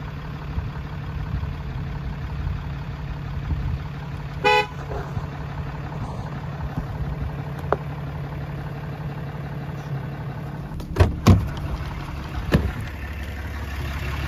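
Ram pickup truck idling steadily, with one short toot of its horn about four and a half seconds in to get goats off the road. Near the end come a few sharp knocks as the truck door is opened.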